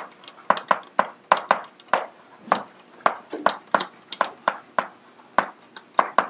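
Chalk tapping and scratching on a blackboard as a line of equations is written, a quick irregular run of sharp taps, about three a second.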